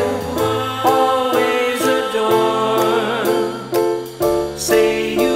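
Background music: a mid-tempo song with a stepping bass line and a steady beat.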